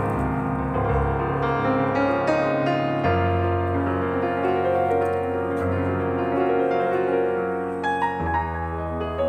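Background instrumental music led by piano: sustained chords, with the bass changing about three seconds in and again near the end.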